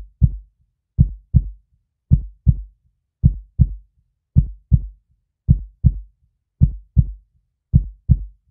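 Heartbeat sound effect: slow, even double thumps, lub-dub, about one pair a second, with silence between.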